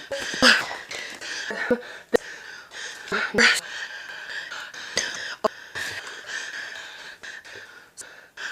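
A woman's heavy breathing, close to the microphone, with louder sharp intakes of breath about half a second and three and a half seconds in.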